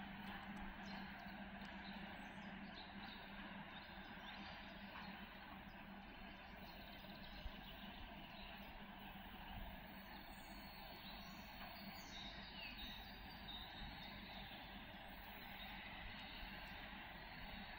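Faint steady background noise with a few bird chirps near the middle. A low hum fades out within the first second.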